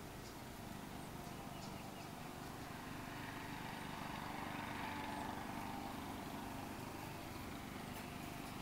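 Faint outdoor background rumble, steady, swelling gently about halfway through and easing off again, like a distant vehicle passing.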